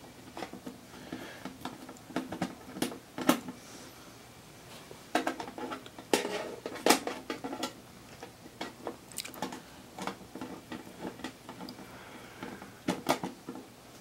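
Screwdriver and screws clicking and scraping against the metal bottom panel of a PC case in short, irregular clusters of ticks and knocks, as the screws into an SSD fail to catch and start.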